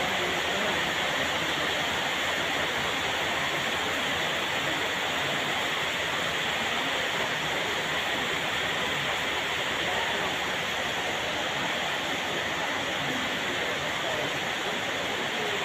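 Steady rain falling: an even hiss with no single events in it.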